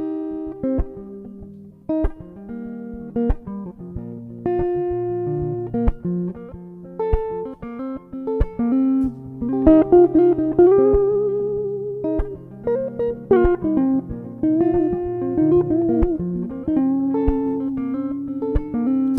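Guitar playing a song's intro: picked notes and ringing chords, with a wavering, vibrato note around ten seconds in.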